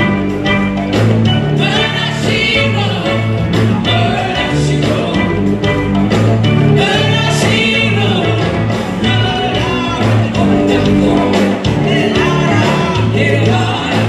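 Two women singing into microphones over amplified backing music with a steady bass line, their held notes wavering with vibrato.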